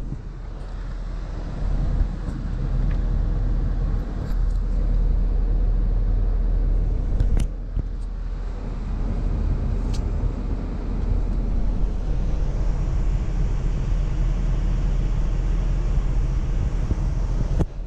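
Ford F-550's 6.7-liter V8 diesel engine idling steadily in Park, heard from inside the cab as a low, even rumble. Two brief clicks come about seven and ten seconds in.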